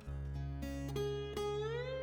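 Background music: plucked string notes, one bending upward in pitch near the end.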